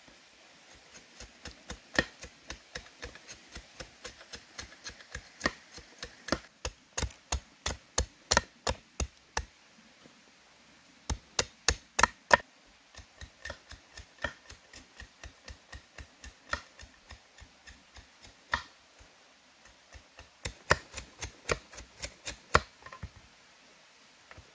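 A blade chopping in runs of quick, even strokes, about three a second, with short pauses between runs.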